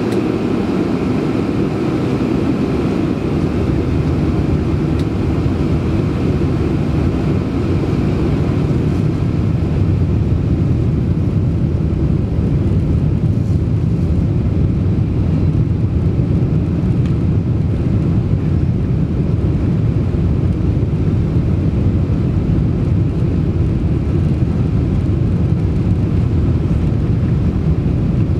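Boeing 747-400 jet engines and airflow during takeoff: a loud, steady, deep rumble. A higher whine fades over the first several seconds while the low rumble swells slightly.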